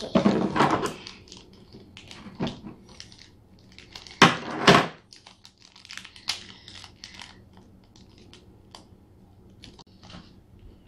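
Crinkling and rustling of paper wrapping as a small toy is unwrapped by hand, in many short irregular rustles, with a louder crinkle about four seconds in.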